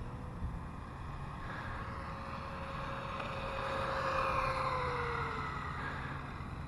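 Toy RC truck's upgraded electric motor and pinion gear whining steadily as it speeds across the pavement. It grows louder about four seconds in, then drops in pitch as the truck runs away.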